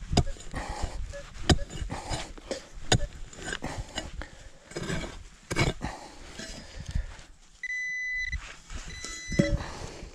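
A pick striking hard, dry soil in repeated blows, a knock every second or so. Near the end a Minelab Equinox 800 metal detector gives a steady high beep for about half a second, then a few shorter beeps: the detector signalling a metal target in the dug hole.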